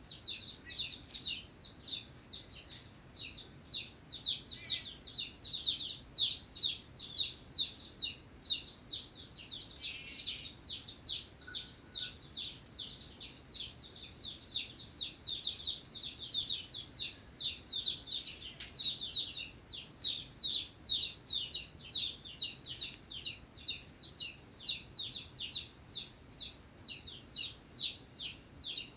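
A small bird chirping in a fast, unbroken series of short, downward-sliding high notes, several a second.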